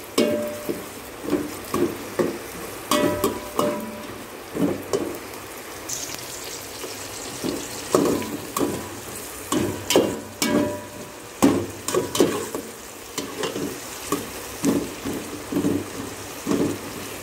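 Sliced onions frying in oil in a steel pot with a steady sizzle, while a spatula stirs them, scraping and knocking against the pot's sides in repeated short strokes.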